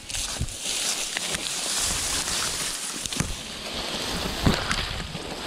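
Mountain bike rolling fast over a rough dirt trail: a steady rush of tyre noise that starts suddenly, broken by a few sharp knocks as the bike hits bumps.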